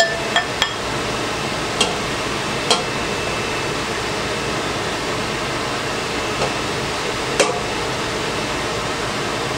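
Silicone spatula scooping pasta from a stainless steel pot into a ceramic bowl, giving a few short light clicks and knocks, mostly in the first three seconds and once more about seven seconds in. A steady fan-like hiss runs under it.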